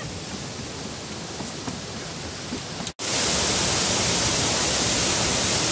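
Water pouring over a low-head dam spillway: a steady rushing hiss. It is fainter at first, then becomes louder and closer after a sudden break about three seconds in.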